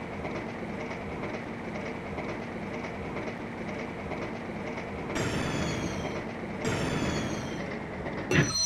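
Train running on rails with a steady rumble and clickety-clack. About five seconds in come two high whines, each sliding down in pitch for about a second and a half, and a sudden louder sound comes near the end.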